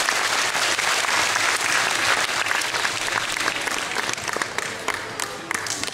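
Audience applauding, dense clapping that thins out after about four seconds into a few scattered claps near the end.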